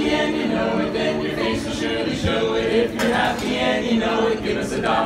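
Men's barbershop quartet singing a cappella, several voices held together in close harmony, the chords changing every fraction of a second.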